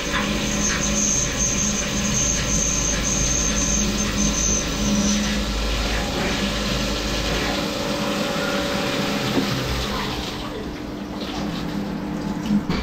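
Syil X7 CNC mill drilling a 3/8-inch hole through the stock under flood coolant: machine running with coolant splashing steadily and a high steady whine for the first five seconds. The sound drops off about ten seconds in as the cut ends, with a few light clicks near the end.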